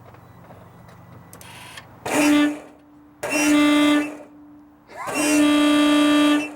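Electric air horn sounding three blasts, short, longer, then longest at about a second and a half, each sliding up briefly into its steady note. It sounds weak and tired, which the owners put down to a worn-out compressor pump.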